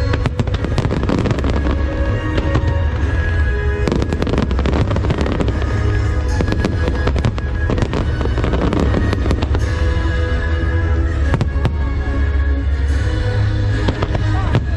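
Aerial fireworks bursting and crackling in rapid, continuous volleys, with many sharp bangs, over loud show music with a heavy bass.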